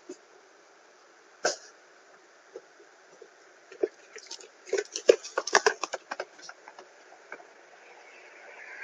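A single sharp click, then a quick flurry of short clicks and knocks about five seconds in, with a few more scattered after.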